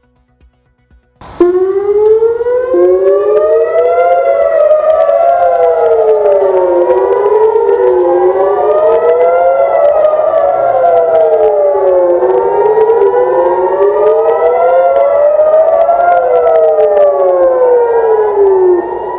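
Civil defense warning sirens wailing, each tone rising and falling slowly over several seconds, two sirens overlapping out of step: the alert for incoming rocket or drone fire. They start suddenly about a second in and drop in level near the end.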